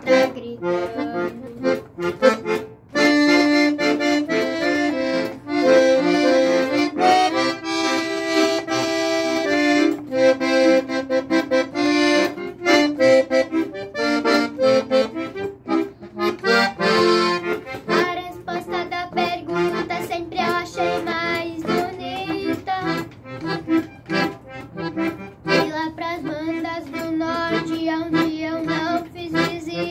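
Piano accordion playing a traditional gaúcho tune: a quick melody on the treble keys over a bass-button accompaniment, thinner for the first couple of seconds and then fuller.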